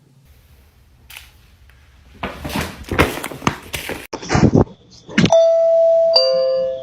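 A burst of loud rustling and knocking, then a doorbell chime: a higher ringing note followed by a lower one, ding-dong, near the end.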